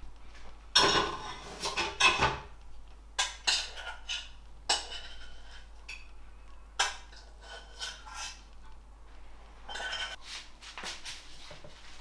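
Metal serving tongs clinking and tapping against a ceramic plate as chicken wings are set down, in several short clusters of clinks, the loudest about a second in.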